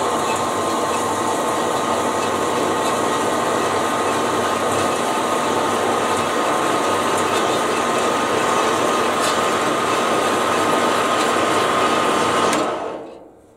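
Horizontal metal-cutting band saw running steadily as its blade cuts through a 7/8-inch Delrin plastic rod. Near the end the saw stops and fades out over about a second as it winds down.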